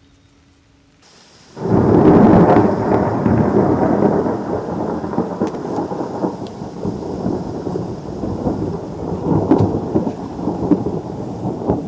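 Thunder: a sudden loud clap about a second and a half in, then a long rolling rumble that slowly fades with a few swells.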